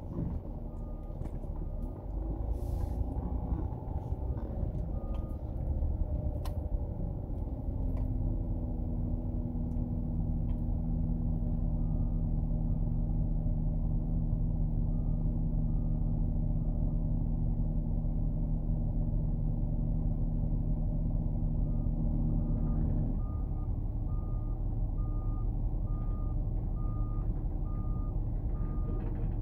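Reversing alarm on heavy equipment beeping about twice a second, coming and going, over the steady low hum of an idling vehicle engine. The engine hum shifts in tone about 23 seconds in.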